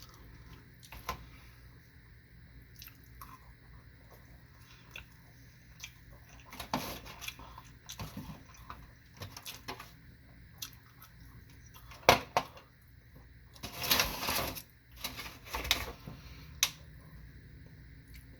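Close-up chewing and mouth sounds of someone eating sushi, with scattered small clicks. There is a sharp knock about twelve seconds in and a stretch of rustling a little after it.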